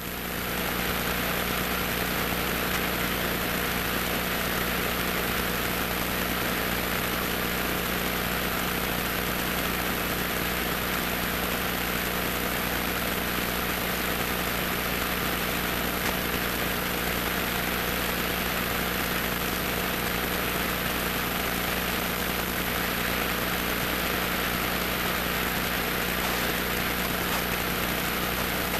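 Cessna 150's four-cylinder Continental O-200 engine and propeller running steadily, heard from inside the cockpit.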